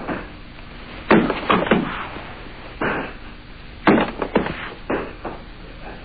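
A series of heavy thuds and slaps, about eight or nine at irregular spacing, some in quick pairs: bodies hitting a tatami mat as attackers are thrown and take breakfalls.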